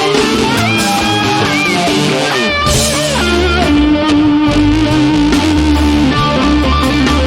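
Live band playing instrumental rock: electric guitar with bending, gliding notes over bass and drums, the bass coming in heavily about two and a half seconds in.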